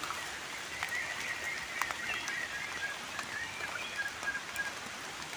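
Steady patter of rain on the forest floor, with a high, thin, wavering animal call that runs on for about four and a half seconds before stopping. A few light clicks are heard along the way.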